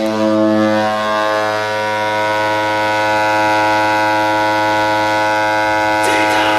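Toledo Walleye's arena goal horn sounding one long, steady, loud blast on a low note rich in overtones. Near the end a noisier sound joins in over it.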